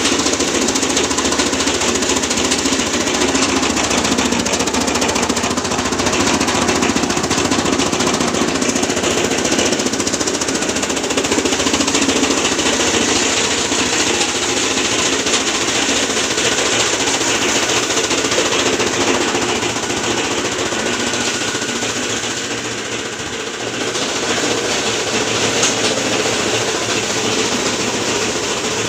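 Geared chaff cutter running and chopping green fodder: a loud, steady, rapid clatter of blades and gears, easing briefly about three-quarters of the way through.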